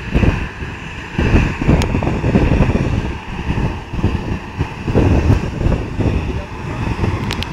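Boeing 737 jet engines running with a steady whine as the airliner turns on the runway, under heavy gusts of wind buffeting the microphone.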